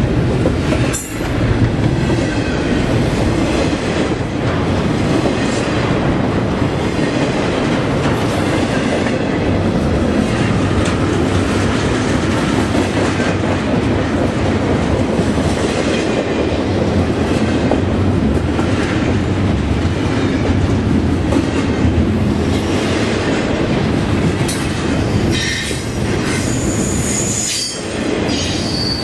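Union Pacific double-stack intermodal container cars rolling past at speed: continuous rumble and rattle of steel wheels on rail. A high wheel squeal sets in near the end.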